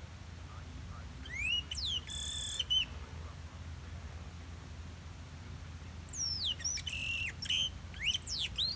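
Wild chopi blackbird (pássaro-preto) singing: two loud phrases of quick sliding whistles and held clear notes, the first about a second in and the second from about six seconds to the end.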